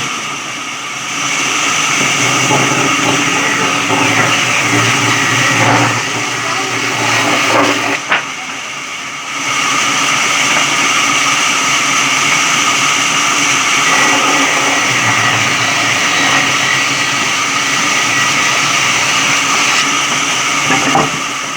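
Electric sawmill saw running with a steady, high-pitched whine, dipping briefly twice.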